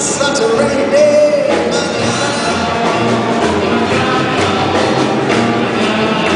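Big band playing live: a saxophone section and brass over drums and bass, with a held note in the first second and a half and steady cymbal strokes.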